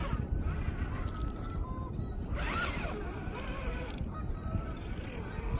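RC4WD Trailfinder 2 scale crawler's electric motor and geared drivetrain whining faintly as the truck crawls slowly over rocks in low gear, under a steady low rumble.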